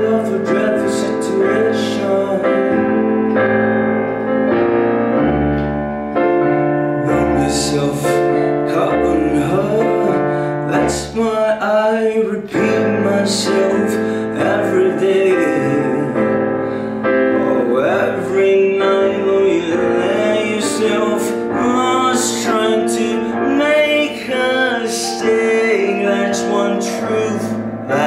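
Piano-voiced keyboard playing a song's instrumental passage: held chords with a melody over them and bass notes.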